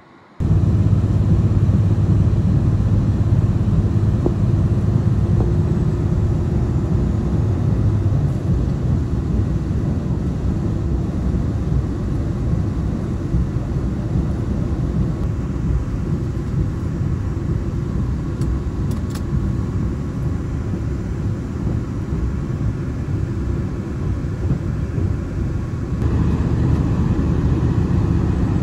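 Cabin running noise of a KiHa 261 series diesel express train at speed: a steady low rumble of the diesel engine and wheels on the rails, a little louder near the end.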